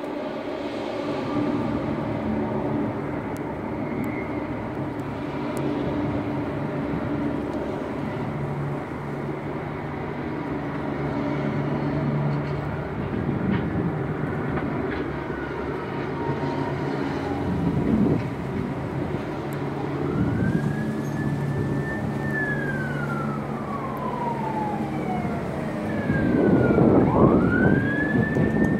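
Emergency vehicle siren wailing: a slow rise to a high held note and then a long slow fall, heard twice in the second half. Underneath is steady background noise with a low hum.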